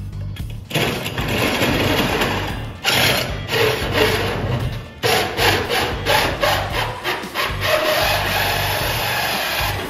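Power drill driving a hole saw through the floor sheeting, a continuous cutting grind that dips briefly a couple of times as the pressure is eased and resumed.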